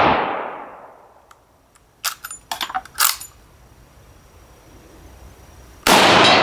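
Rifle shot of a WW2-era bolt-action rifle ringing out and fading over the first second, then the bolt worked back and forward with a quick run of sharp metallic clacks and clinks about two seconds in, and another loud shot near the end.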